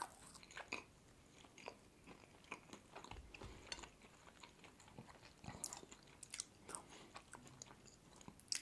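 Near silence with faint, scattered soft clicks of quiet eating and handling food close to the microphone, a few slightly louder clicks about two-thirds of the way through.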